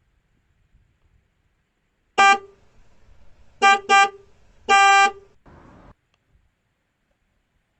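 Car horn honking four times: one short toot, two quick toots, then a longer honk. A brief burst of hiss follows.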